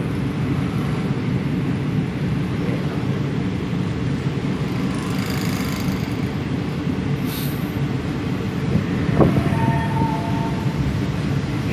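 Steady rumble of a passenger train coach running along the rails, heard from inside the carriage, with a single short knock about nine seconds in.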